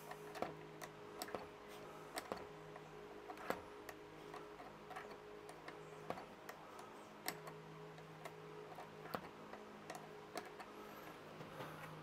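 Faint, irregular metallic clicks and ticks of a small open-ended spanner and fingers working the throttle-cable nut on a strimmer's carburettor, over a faint steady hum.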